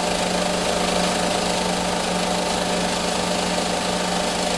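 Snowmobile's two-stroke engine running steadily at idle.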